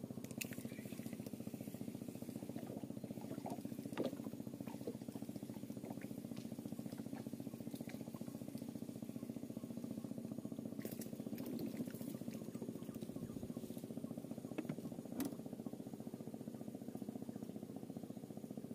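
A steady low mechanical drone with a regular, fine pulsing, with a few faint clicks about 4, 11 and 15 seconds in.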